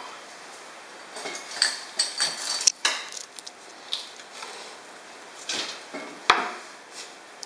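Kitchen utensils clattering against dishes and a chopping board: a run of metallic clinks and scrapes, then a sharp knock just after six seconds in.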